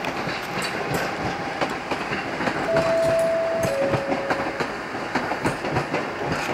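A Class 323 electric multiple unit running past, its wheels clicking over the rail joints. About three seconds in, a train horn sounds two held notes, the second lower than the first.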